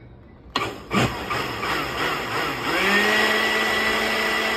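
Countertop blender switched on about half a second in, blending a liquid flan mix of eggs, condensed milk and evaporated milk. The motor runs up to speed and settles into a steady whine about three seconds in.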